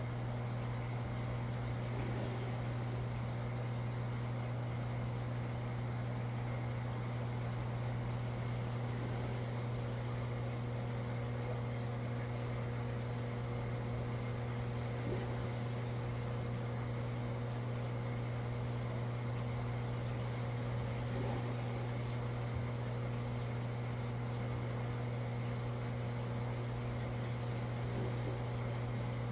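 Aquarium equipment, a pump or filter, running with a steady, unbroken low hum over a faint even hiss.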